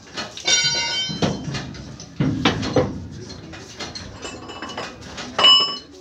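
Metal tools and parts clanking during truck wheel-hub work: a ringing metallic clang about half a second in, dull knocks in the middle, and a louder, shorter ringing clang near the end.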